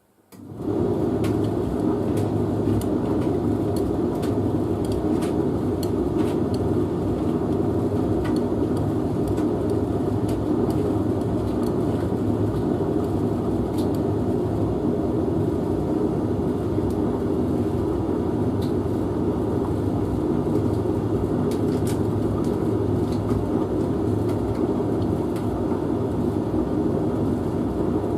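Domestic laundry machine running steadily: an even mechanical rumble and hum with faint scattered ticks.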